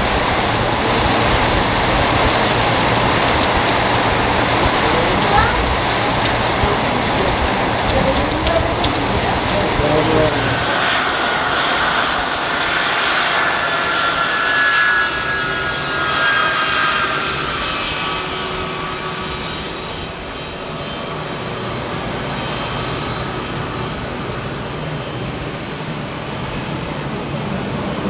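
Heavy rain falling steadily for about ten seconds, then it cuts off suddenly and a jet airliner's engines are heard as a steady whine with several high tones, easing off somewhat toward the end.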